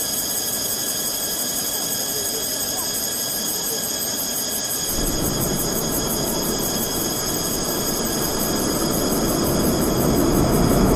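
Long March 4B rocket's hypergolic first-stage engines at ignition and liftoff: a steady roar that deepens and grows louder from about five seconds in, as the rocket rises off the pad.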